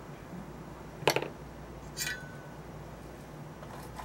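Small hard objects clinking: a quick rattle of clicks about a second in, then one metallic clink that rings briefly about a second later.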